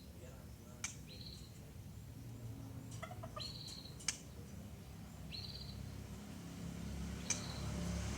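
A murai songbird giving short, level, whistled call notes, one roughly every two seconds, with a few sharp clicks between them over a low steady hum.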